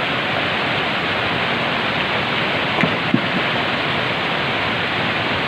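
Fast mountain stream rushing steadily over boulders and through rapids. A couple of soft knocks sound around three seconds in.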